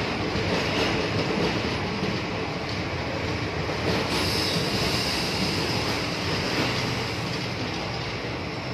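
Indian Railways passenger train's sleeper coaches rolling past on the track, their wheels running steadily on the rails.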